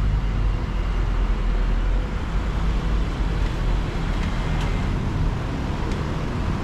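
Steady low rumble and hiss of motor vehicles and road traffic.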